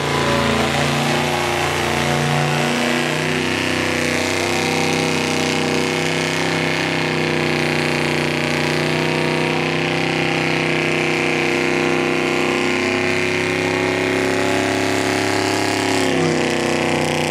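A muscle car doing a burnout: its engine is held at high, steady revs while the rear tyres spin in a cloud of smoke. The revs drop briefly about a second before the end, then pick up again.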